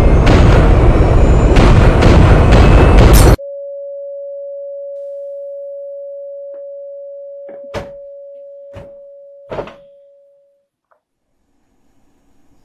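A loud, rumbling explosion-like blast cuts off abruptly about three seconds in. A single steady mid-pitched tone, like a crashed computer's stuck beep, then slowly fades out over about seven seconds. A few sharp clicks sound over the tone, two of them louder.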